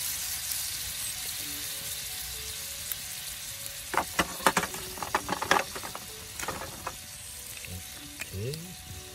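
Meat and kimchi frying in sauce in a pan over a wood fire: a steady sizzle that slowly dies down, with a cluster of sharp pops and crackles about four to six seconds in.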